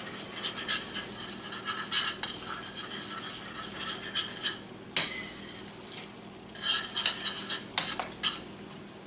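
A utensil stirring a cream pan sauce in a frying pan, clinking and scraping against the pan in irregular taps, with a run of quick taps near the end.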